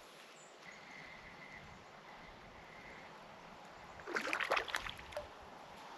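A short burst of water splashing, about a second long, about four seconds in.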